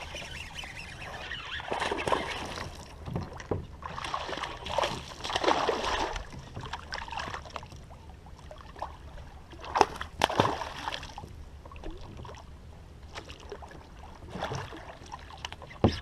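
Water splashing and sloshing in several surges, with a couple of sharp knocks about ten seconds in.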